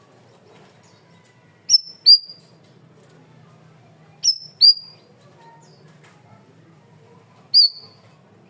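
Cucak rawis (bayeman) calling: loud, sharp whistled notes that drop steeply and hold briefly, two quick pairs and then a single note, its 'tembakan' shot calls.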